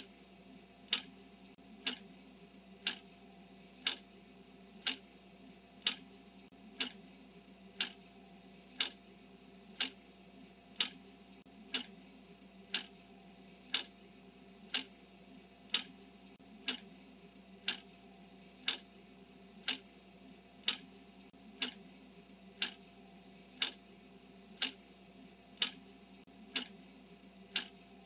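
Countdown timer's clock-style ticking: one sharp tick each second, marking the seconds as the timer counts down. A faint steady low hum runs underneath.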